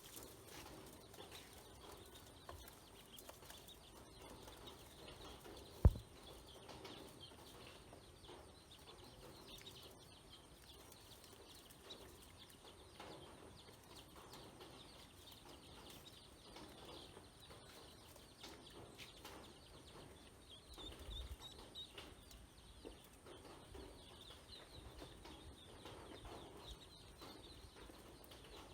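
Faint, continual peeping of ducklings, with a single sharp thump about six seconds in.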